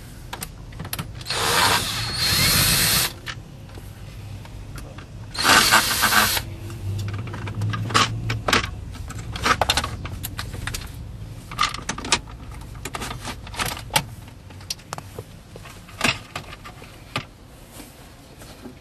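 Two short runs of a handheld power tool, the first about two seconds long and the second about one, followed by scattered clicks and knocks as dashboard parts are worked on.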